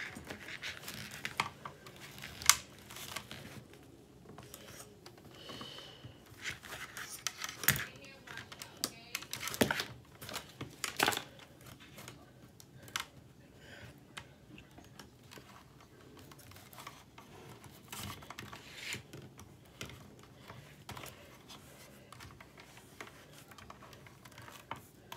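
Plastic ring light parts being handled and fitted together: scattered clicks and knocks with some rustling.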